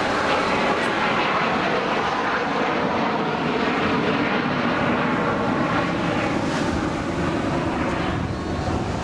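Jet noise of Avro Vulcan XH558's four Rolls-Royce Olympus turbojets as the delta-wing bomber banks past and away: a steady, loud rush that eases slightly near the end.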